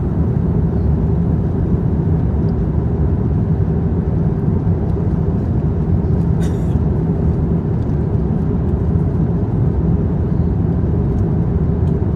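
Steady low rumble of an airliner cabin in cruise, the engine and airflow noise holding an even level, with a faint click about six and a half seconds in.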